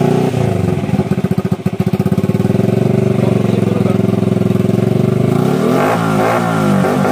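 Honda TMX 125 Alpha's single-cylinder four-stroke engine running through a straight-through SC Project-style aftermarket canister on a 51 mm elbow. It idles with an uneven pulsing beat about a second in, and the revs rise and fall in short blips near the end.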